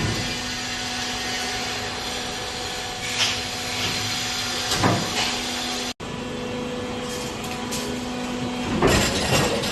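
Steady hum of factory machinery with a constant low tone, broken by a couple of knocks about three and five seconds in. The sound drops out for an instant about six seconds in, and a busier run of clattering starts near the end.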